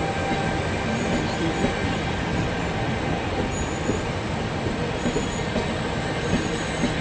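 Trenitalia double-deck passenger coaches rolling past on the rails, a steady, even wheel-and-rail running noise with small irregular knocks.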